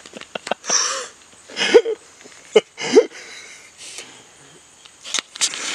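A man breathing hard in sharp, hissing breaths through his mouth, with a few short voiced grunts, his mouth burning from hot jalapeño.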